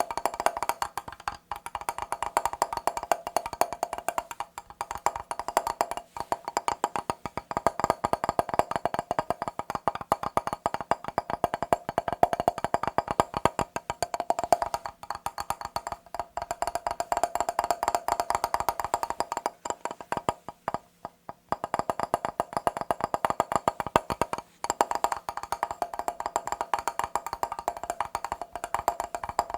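Fast tapping on a mirror: rapid, continuous taps with a few brief pauses, the longest about two-thirds of the way through.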